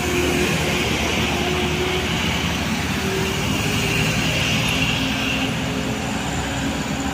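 Road traffic on a steep hill climb: a light truck's diesel engine running steadily under load, mixed with passing cars and motorbikes.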